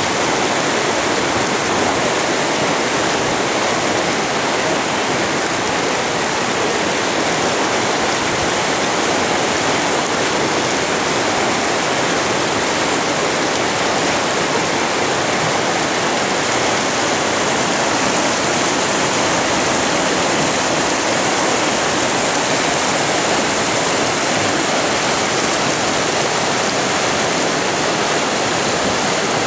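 Whitewater of an artificial slalom channel rushing and churning, a steady loud roar of water with no break.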